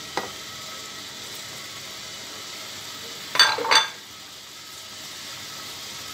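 Fish curry (mustard-paste jhol with drumsticks and potatoes) bubbling and sizzling in a pan over raised heat as fried fish are scraped in from a bowl. A click just after the start, and two short clinks of the wooden spatula against the bowl or pan about three and a half seconds in.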